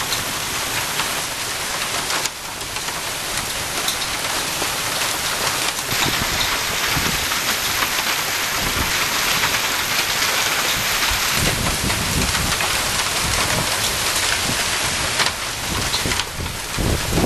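Heavy rain and hail pelting down in a hailstorm: a dense, steady hiss peppered with many sharp ticks of hailstones striking. Low rumbles swell up several times through it.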